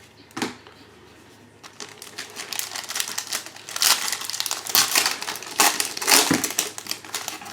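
Crinkling and crumpling of a trading-card pack's foil wrapper being handled and opened, starting about two seconds in and coming in irregular flurries, loudest around the middle.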